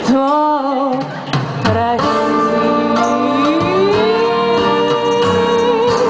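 Woman singing a slow blues ballad live into a microphone over instrumental backing. She holds a wavering note at the start, and long sustained notes and chords follow with a slow rise in pitch midway.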